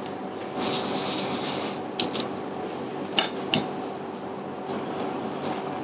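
Eating by hand: a mouth noise of chewing about a second in, then about four sharp clicks of snail shells knocking against the plate as a snail is picked up.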